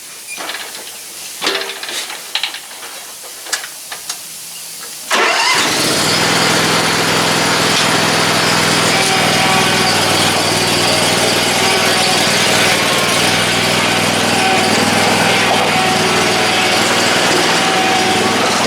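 A few metal knocks, then about five seconds in a motor starts abruptly and runs at a steady speed with a low hum.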